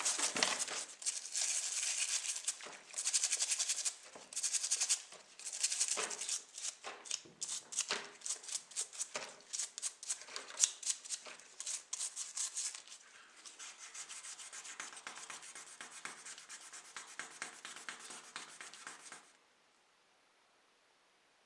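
Hand sanding of a small model car part: rapid scratchy strokes in bursts that turn finer and steadier later on, then stop abruptly a couple of seconds before the end.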